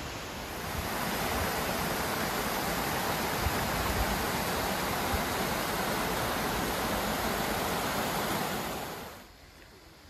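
Steady rush of falling water from a waterfall, swelling about a second in, holding even, then dropping away sharply near the end.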